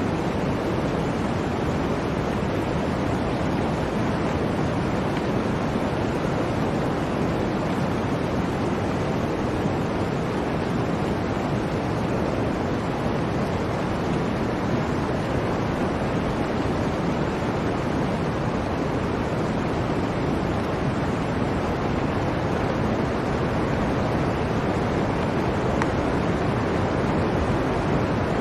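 Blizzard wind: a steady, even rushing noise with no breaks or gusts standing out.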